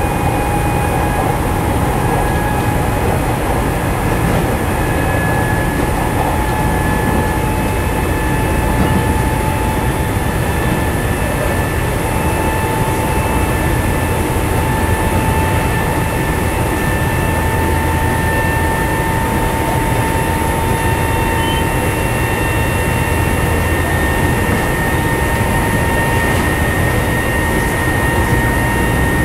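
Nankai 7100 series electric train running at speed: the traction motors give a steady whine that edges slowly higher over the continuous rumble of wheels on rail, heard from inside the car.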